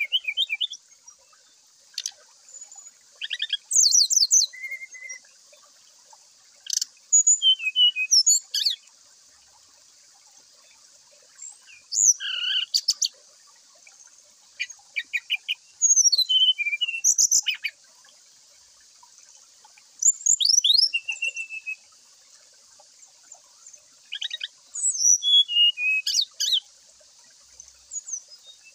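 Brown-chested jungle flycatcher singing in short bursts of rapid high notes and sweeping whistles, with pauses of one to three seconds between phrases, over a faint steady high hiss.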